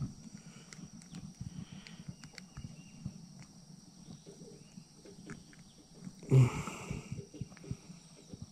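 Light scattered knocks and clicks of tackle and gear being handled in an aluminium jon boat, with one louder thump about six and a half seconds in.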